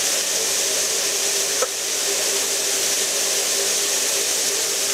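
Emergency safety shower pouring water in a steady, hissing rush, with a faint steady hum under it. There is a single small click about a second and a half in.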